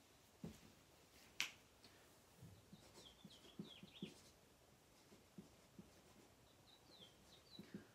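A dry-erase marker squeaking faintly on a whiteboard in short strokes as words are written, in two bursts. A single sharp click comes about a second and a half in.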